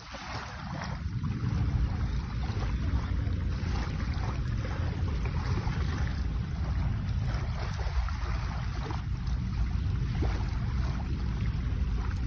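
Wind blowing across the microphone: a steady low noise that picks up about a second in and holds.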